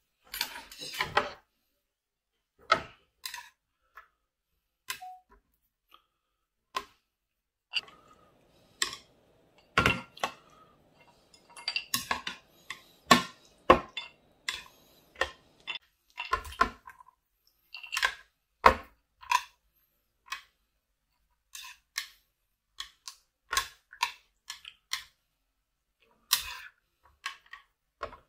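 Metal spoon and chopsticks clinking and tapping against ceramic bowls, and bowls being set down on a table, in many short separate clinks and knocks.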